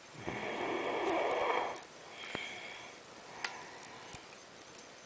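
A person snoring: one loud, rough snore lasting about a second and a half, then a softer breath and a few faint clicks.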